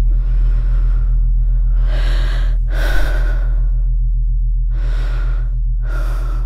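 Heavy human breathing, five breaths each under a second long, over a loud, low drone that pulses rapidly.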